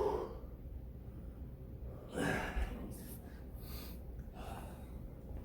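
A man breathing out hard, a sigh or gasp, about two seconds in, ending in a brief low thump; a shorter breath burst at the very start.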